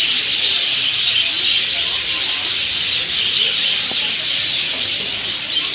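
A large flock of parrots chattering and screeching together, a dense, steady high-pitched din.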